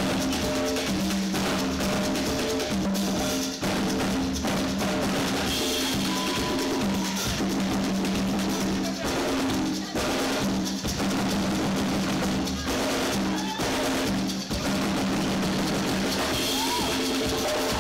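Zimbabwean band playing live, drum kit and hand percussion keeping a steady, busy beat under a repeating pattern of low held notes.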